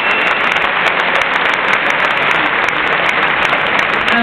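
Large crowd applauding steadily, a dense, continuous clapping.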